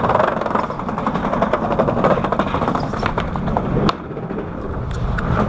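Skateboard wheels rolling on a wooden plank boardwalk: a steady rumble with rapid clacks as the wheels cross the plank seams. A sharp knock comes about four seconds in, and the rumble is quieter after it.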